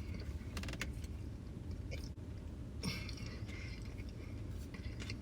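Faint sounds of a person chewing a mouthful of food, with a few soft clicks and crackles, over a low steady hum.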